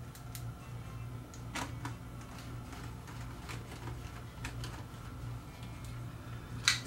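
Scattered faint clicks, about one a second, of an Allen key and small screws being worked into a Canon XL2 camcorder's body, over a steady low hum.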